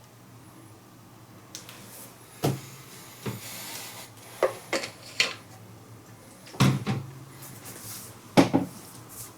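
A series of sharp clicks and knocks, several of them in quick pairs, with brief rustling: small hard objects, such as plastic remote-control parts and tools, being handled and set down on a work surface.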